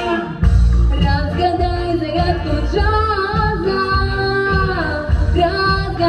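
A girl singing a jazz-style song into a microphone over accompanying music with a steady bass and beat, holding long notes, the longest about four seconds in.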